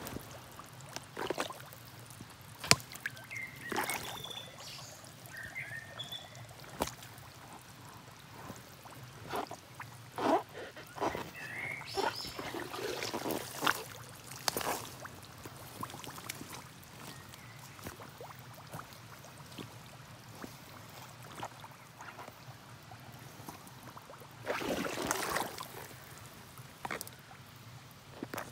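Century 4000 chest-wader boots tramping through wet mud, with irregular squelching and sucking steps and splashes. A longer sloshing stretch comes about three-quarters of the way through.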